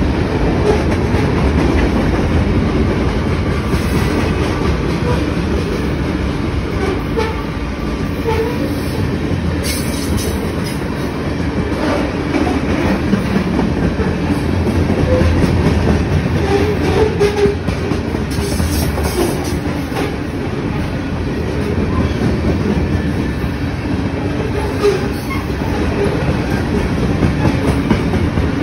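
CN freight train's hopper cars rolling past at close range: a steady rumble with the wheels clacking over the rail joints and, now and then, a short squeak.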